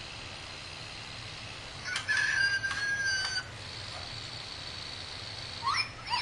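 Zhu Zhu Pets battery-powered toy hamster making its electronic squeaks: one long, nearly level squeal about two seconds in, then a few short rising and falling chirps near the end.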